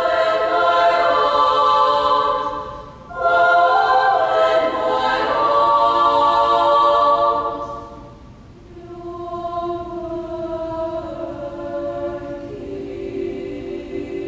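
Girls' treble choir singing sustained chords in full harmony: a loud phrase breaks off for a short breath about three seconds in, the next loud phrase fades about eight seconds in, and a quieter passage of held notes follows, with a lower held note entering near the end.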